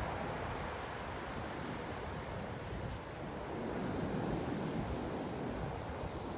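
Ocean surf: waves breaking and washing onto the shore in a steady rushing wash that swells a little about four seconds in.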